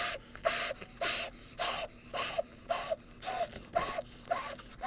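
A person blowing repeatedly into the valve of an inflatable camping pillow to inflate it, the sound sped up. It comes as short puffs of breath, about two a second, each with a brief tone.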